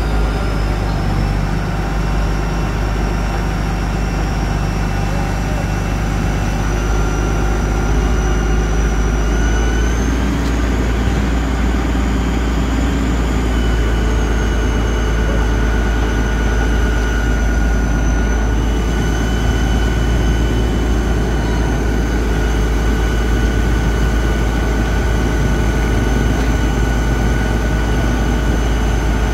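Engine running steadily, with a heavy low rumble and a high whine that drifts slowly up and down in pitch.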